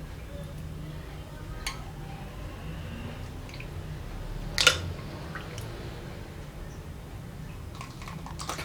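Iced fruit drink being handled in cups: a few light clicks and soft liquid sounds, with one sharper click about halfway through, over a low steady hum.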